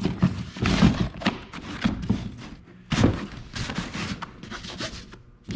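Gear being handled on a plastic fishing kayak's deck: an irregular series of knocks and thumps with rustling between them, the loudest about a second in and again about three seconds in.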